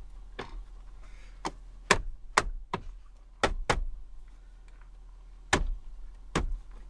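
Plastic lower dash trim panel of a 2018 Ford F-250 being pressed back into place: a series of about eight sharp plastic clicks and knocks at uneven intervals as its clips snap in.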